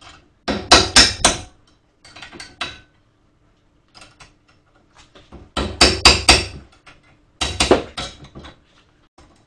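Hammer blows on a car's front brake rotor, metal ringing: four bursts of several quick strikes each, about half a second in, near two seconds, near six seconds and near seven and a half seconds, with lighter taps between.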